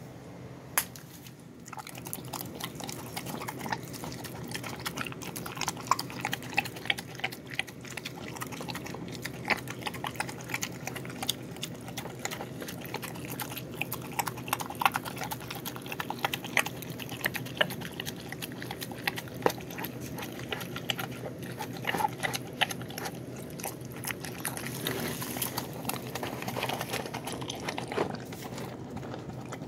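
Dog eating wet chicken-and-rice mush from a bowl: steady wet chewing and smacking with many irregular clicks and crunches. It starts about two seconds in.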